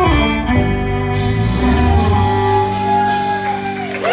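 Bluegrass string band of fiddle, banjo and acoustic guitar holding out the final chord of a song, the notes ringing on together, with a long fiddle note bending down near the end.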